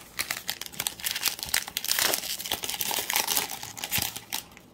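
Foil wrapper of a trading-card pack crinkling rapidly as it is handled, loudest in the middle and dying away near the end.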